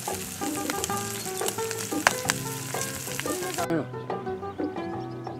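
Thick slices of pork belly sizzling in a frying pan on a gas camping stove, with a few sharp pops of spitting fat; the sizzle cuts off suddenly about two-thirds of the way in. Background music plays over it.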